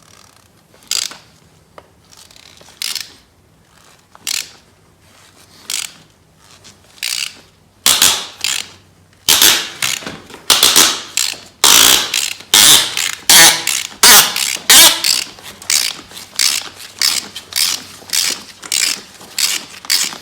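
Ratchet wrench clicking in repeated back-and-forth strokes as it turns a nut welded onto a broken exhaust manifold stud, backing the stud out of the cylinder head. The strokes come about every second and a half at first, then faster and louder from about eight seconds in.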